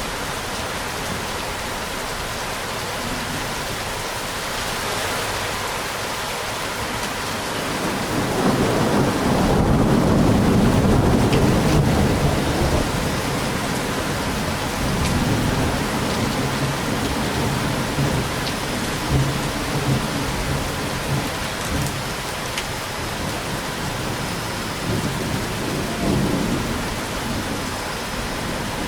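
Steady heavy rain with a long roll of thunder that builds about eight seconds in, is loudest a few seconds later and rumbles away over several seconds, with smaller rumbles later on.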